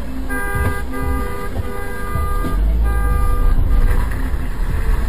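Car horn honking in several long blasts during the first three and a half seconds, over the steady low rumble of the car and road.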